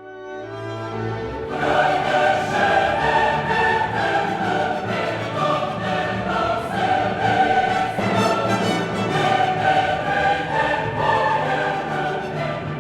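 Background music: choral and orchestral, with sung voices over strings, swelling in over the first second or two and then holding at full level.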